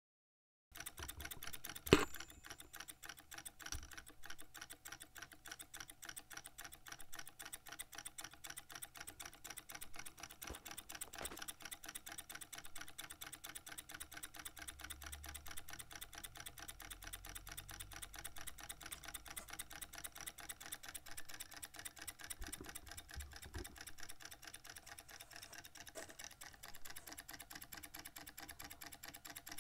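Model Froment electromagnetic revolving-armature engine running on 4.5 V DC, giving a fast, even mechanical clicking that starts under a second in. One sharper, louder click comes about two seconds in.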